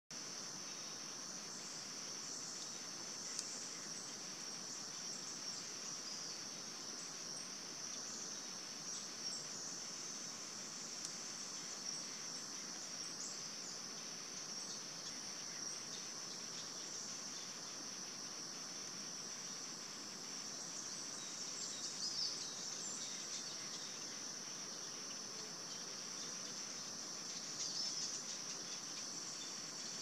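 Steady, high-pitched drone of an insect chorus, with a few short, louder chirps about two-thirds of the way through and again near the end.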